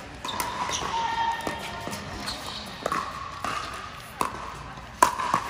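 A doubles pickleball rally: hard paddles popping the plastic ball back and forth, several sharp hits at uneven spacing with the loudest near the end, amid short squeaks of court shoes on an indoor floor.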